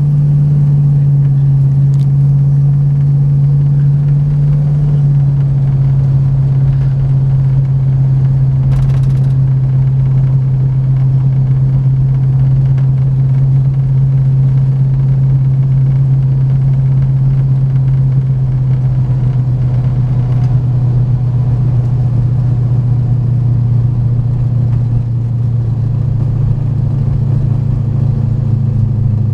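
Car engine droning steadily under way, heard from inside the cabin. Its pitch eases slightly lower over time and shifts near the end.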